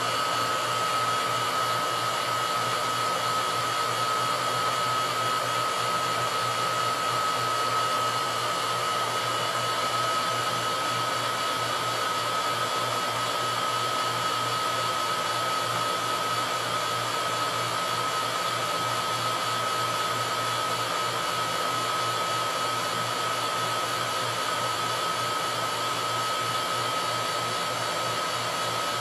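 Vacuum pump running steadily under a chamber pulled down to near 30 inches of vacuum, with a constant high whine over it.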